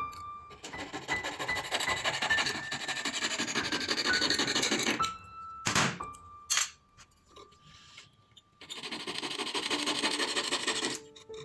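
Scraping of metal being filed or abraded by hand on a silver ring, in two spells with a pause between. The pause holds a couple of sharp clicks.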